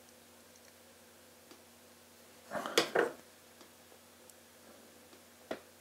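Small handling sounds in a quiet room: a brief cluster of clicks and scrapes about three seconds in, and one sharp click near the end, as a hooked hobby pick and a small vinyl sticker are handled on a wooden desk.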